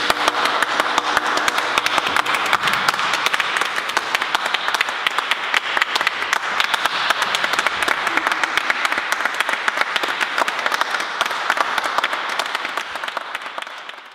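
A small audience applauding, with dense, steady hand-clapping that fades a little near the end.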